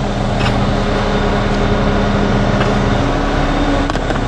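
Concrete mixer truck's diesel engine running steadily at a steady pitch, which steps up about three seconds in.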